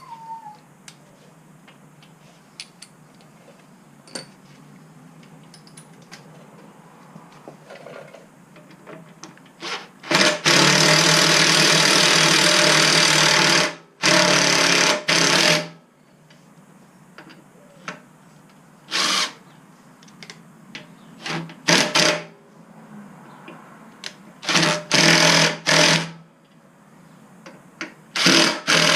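Handheld power driver running in bursts, spinning bolts into threaded holes to fit the bracket. It is quiet for the first ten seconds, then comes one long burst of nearly four seconds, followed by a string of short bursts.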